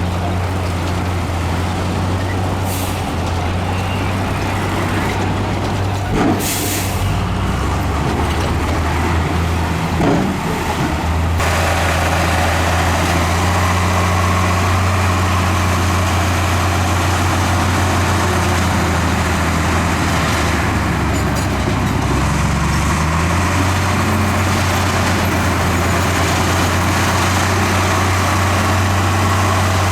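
Heavy diesel earthmoving machinery running steadily, with a few short air hisses in the first third. The engine rises briefly in pitch about two-thirds of the way through.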